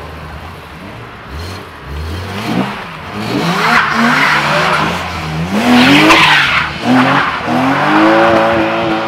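BMW Z3 roadster pulling away with wheelspin: the engine revs up repeatedly in climbing sweeps while the rear tyres squeal, loudest around the middle.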